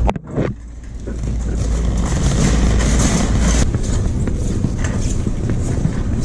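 Steady road and wind noise of a moving car, a low rumble with hiss over it. It cuts in abruptly and builds over the first second.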